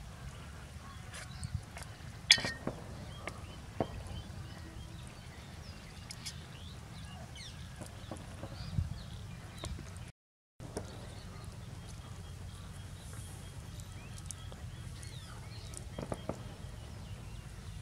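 A steel spoon clinking and scraping against a steel cooking pot a few times as curry is ladled out, the sharpest clink about two seconds in, over a steady low rumble.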